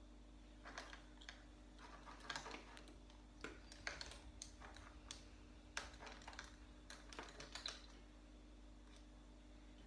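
Irregular light clicks and taps, a dozen or so spread over several seconds, stopping near the end, over a faint steady hum.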